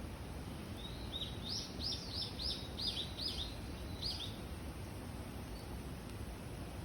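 A bird singing a quick run of about nine repeated high, arching notes, roughly three a second, starting about a second in and stopping about four seconds in, over a steady low background rumble.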